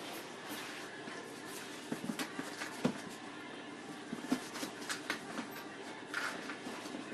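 Month-old puppies moving about, with scattered light clicks and knocks at an uneven pace.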